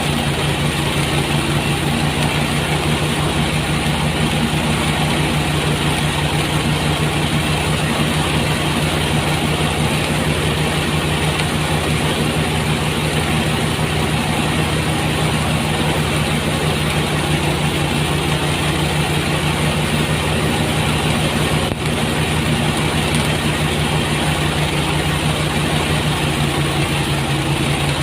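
Engine-driven rice threshing machine running at a steady speed, a constant mechanical hum.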